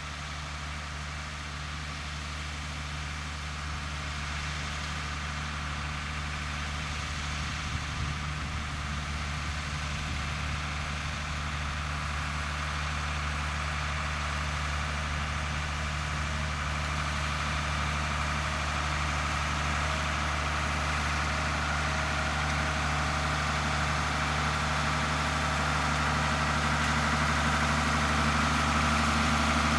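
Fendt Farmer 311 LSA tractor's four-cylinder diesel engine running at a steady speed while it pulls a rotary tedder through cut grass. It grows gradually louder as the tractor comes closer.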